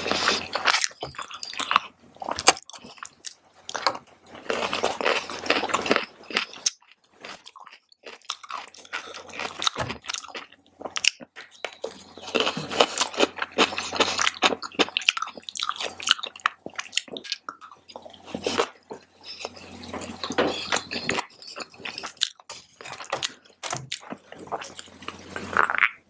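A person chewing mouthfuls of vegetarian fried rice close to the microphone, with many small irregular mouth clicks.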